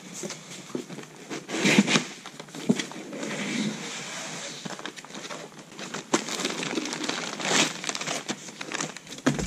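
Plastic wrapping crinkling and cardboard packing rustling as a new aircraft engine cylinder assembly is lifted out of its shipping box, in irregular bursts with a few handling knocks; the loudest rustles come about two seconds in and again near the end.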